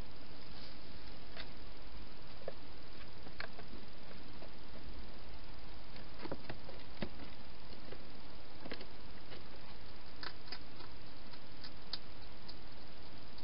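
Irregular soft clicks and crunches of a wild hedgehog feeding from bowls, over a steady background hiss.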